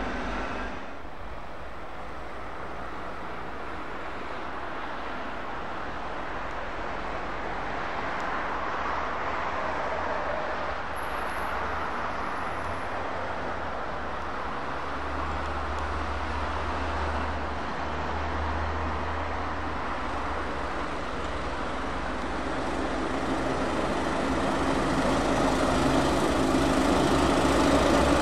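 Road traffic with heavy diesel lorries and cars passing: a steady rumble of engines and tyres, growing louder near the end.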